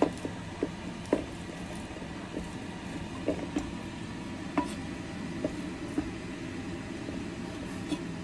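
A cleaver knife knocking and scraping on a wooden cutting board while herring are filleted and their bones cut away: about ten short, scattered knocks over a steady background hum.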